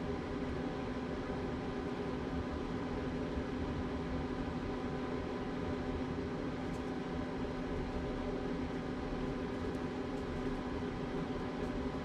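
A steady machine hum with several held tones, unchanging throughout, with a few faint light ticks in the second half.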